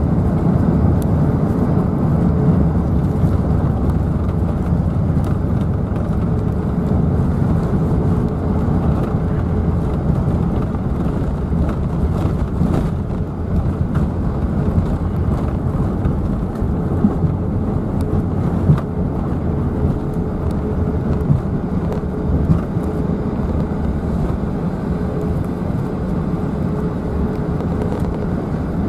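Steady low rumble inside the cabin of an Airbus A380 during its landing roll, ground spoilers raised, with a faint steady hum and a few small knocks in the second half.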